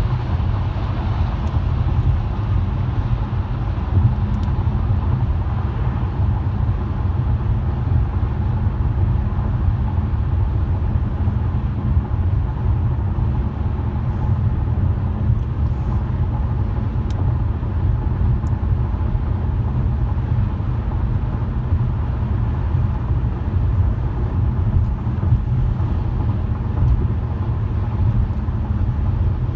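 A car driving along: a steady low rumble of engine and tyre noise, with a few faint ticks partway through.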